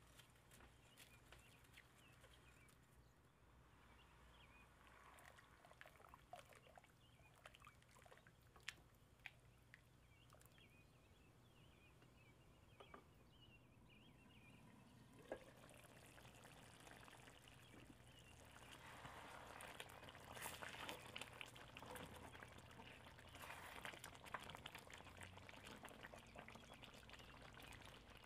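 Quiet cooking sounds: faint bubbling from a lidded pot of rice simmering in water, with a few light clicks. From about 18 seconds in, a louder crackling bubble and scrape as a thick meat curry is stirred in a pan with a spatula.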